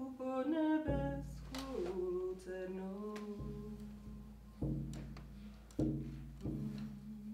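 Large hand-held frame drum struck with a padded beater, giving deep ringing booms about five times at a slow, uneven pace. A woman's singing voice ends about a second in, just as the first stroke lands.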